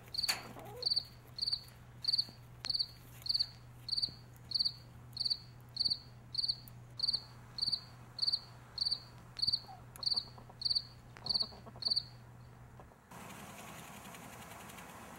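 A cricket chirping in a steady rhythm, about two short high chirps a second, over a faint low hum. The chirping stops about twelve seconds in, and a steady hiss takes over near the end.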